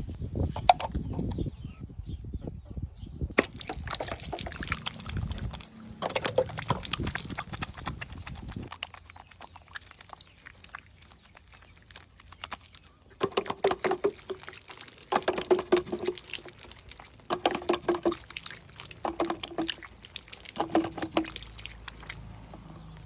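Water sloshing and splashing, in a run of short repeated bursts in the second half.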